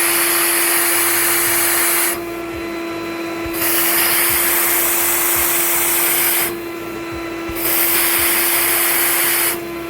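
Vacuum cleaner running through a homemade tin-can cyclone separator, a steady motor hum under a loud rush of air. The air rush drops away twice for about a second at a time, about two seconds in and again near seven seconds, then comes back. This is the intake being blocked and the separator's vacuum relief valve letting air in from the top so the can does not collapse.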